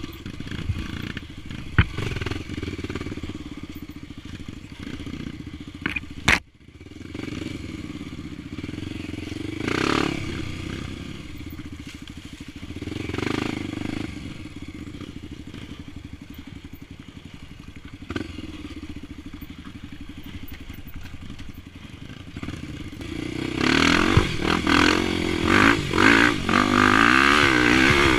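Four-stroke single-cylinder engine of a Honda XR 250 Tornado trail bike, bored out to 280cc, running as it rides a dirt trail; the revs swell now and then. A few sharp knocks and clatter come from the bike, the loudest about six seconds in. The revs climb hard over the last few seconds.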